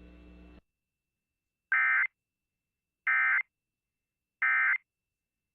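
Emergency Alert System end-of-message signal: three short bursts of SAME digital data tones, about a second and a half apart, marking the close of the required monthly test.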